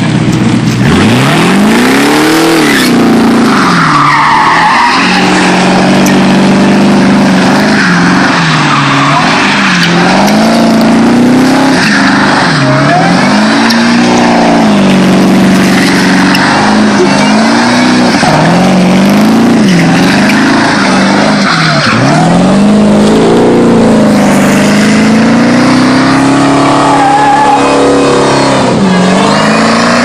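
Supercharged 5.4-litre V8 of a Ford F-150 SVT Lightning pickup revving hard during a burnout. The engine pitch rises and falls again and again, about every two seconds, over the loud noise of the spinning, skidding rear tyres.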